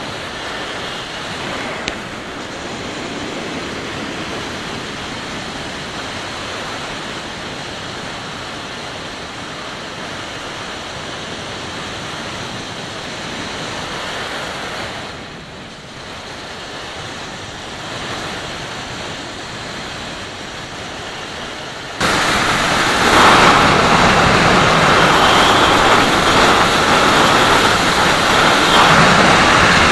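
Wind rushing over the microphone of a camera on a moving motorcycle, with road noise mixed in. It is a steady rush that jumps much louder about three quarters of the way through.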